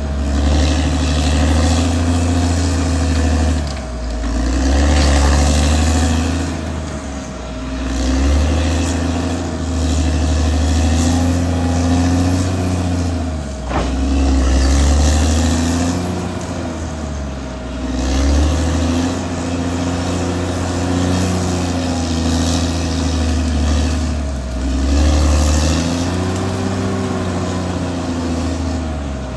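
Caterpillar D6R XL bulldozer's diesel engine running hard, its note repeatedly dipping and climbing back in pitch every few seconds as the machine works. A single sharp clank about halfway through.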